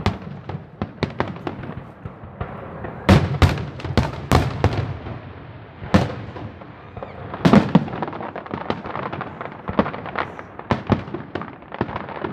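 Fireworks going off: a string of sharp bangs, heaviest in clusters a few seconds in, about halfway and a little after, followed by a dense run of smaller crackling pops.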